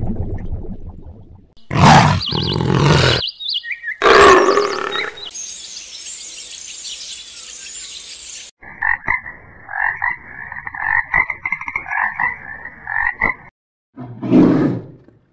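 A run of different animals' calls, one after another: loud, short calls about two and four seconds in, a steady hiss, then about five seconds of quick repeated calls, and one more loud call near the end.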